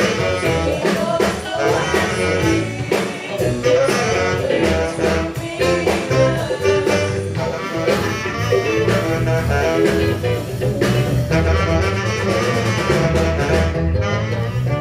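Live band playing an up-tempo funk-rock tune: tenor saxophone over electric guitar, bass and drums.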